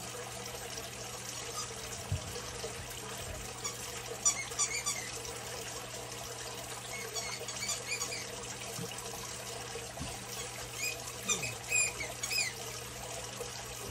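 Wire whisk stirring a milk sauce in a stainless steel saucepan, the liquid swishing, with three spells of short high scratchy sounds as the wires scrape the pan. A steady low hum runs underneath.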